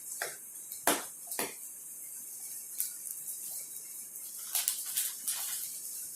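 Gift wrapping and ribbon being handled and pulled open: three sharp crackles in the first second and a half, then a run of crackling rustles about four and a half seconds in.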